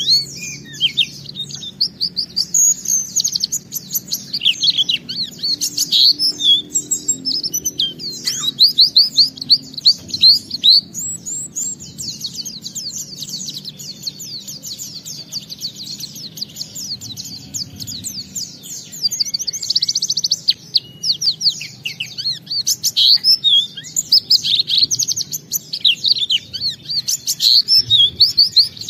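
White-eye (pleci) singing a long, unbroken song of rapid high twitters and trills, the full-repertoire 'gacor' singing with borrowed phrases that keepers play to set other white-eyes singing.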